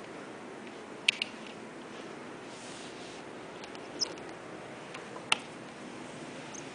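Glass patio door being unlatched and opened: a few sharp clicks and knocks from the handle and frame over a steady hiss, the loudest about five seconds in.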